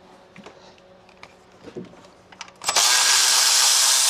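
Faint clicks of hand tools, then about two and a half seconds in a cordless power tool runs loudly and steadily for about a second and a half, loosening the 10 mm fastener on an engine line.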